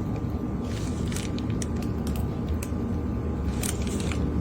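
A steady low background rumble, with scattered light clicks and crackles from a plastic piping bag being squeezed to pipe egg filling.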